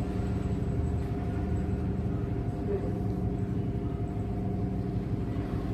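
A steady mechanical hum with several held tones over a low rumble.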